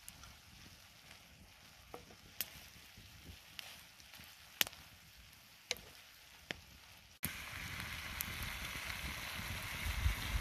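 Chicken and sliced bell peppers frying in a skillet over a wood fire and being stirred with a wooden spatula. At first there is a faint sizzle with a few sharp crackles and clicks. About seven seconds in, it jumps suddenly to a louder, steady sizzle.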